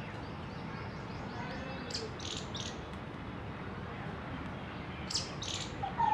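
Small birds chirping outdoors: faint twittering, then two quick clusters of short, high chirps about two seconds in and again about five seconds in, over steady outdoor background noise.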